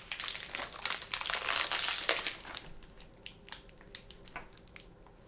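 Snack wrapper crinkling as it is unwrapped for about two and a half seconds, then a few fainter scattered crackles.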